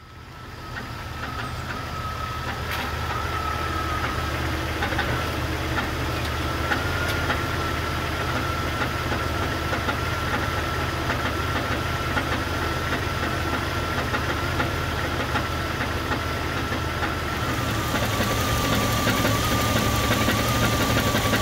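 2001 Jeep Cherokee XJ's 4.0-litre inline-six running with a steady rhythmic clunking knock: a rod knock, the connecting rods wiggling on the crankshaft, the sign of a dying engine. A thin steady high whine runs along with it, and the sound fades in at the start.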